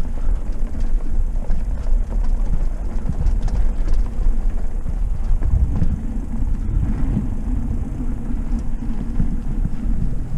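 Trek Roscoe 6 hardtail mountain bike rolling along a wooden boardwalk: a steady low rumble of tyres on the planks, with the odd short clatter from the bike.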